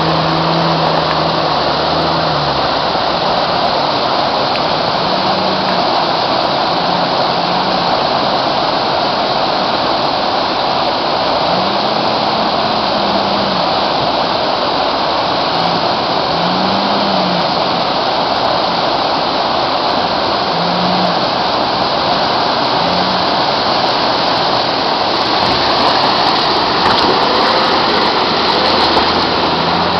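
Loud, steady rush of a fast mountain river. Underneath it, a Nissan Safari SUV's engine revs up and down in short spells as it fords the river.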